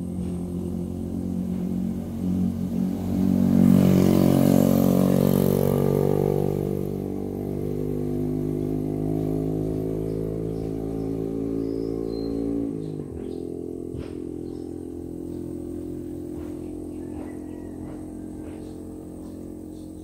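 A motor vehicle's engine passing close by. It grows loudest about four seconds in, with its pitch sinking slightly, drops sharply in pitch about thirteen seconds in, then fades away slowly.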